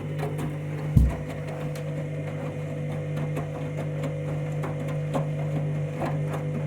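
Candy washing machine in its main wash: a steady motor hum as the drum turns a heavy load, with one loud thud about a second in and scattered light knocks.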